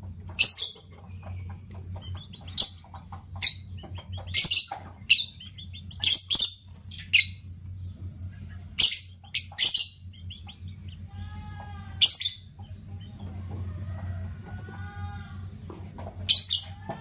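Caged lovebirds giving sharp, shrill chirps, about a dozen scattered through, with a softer, lower warbling chatter in the middle stretch. A steady low hum runs underneath.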